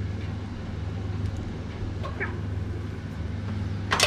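Steady low hum of a fan oven's convection fan with the door open, and two sharp metal knocks near the end as the roasting tray and rack are handled.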